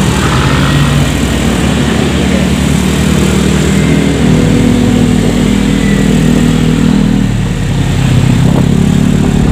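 Motor scooter engines running while riding in a stream of motorcycle traffic, the engine note shifting about four seconds in and again near the end.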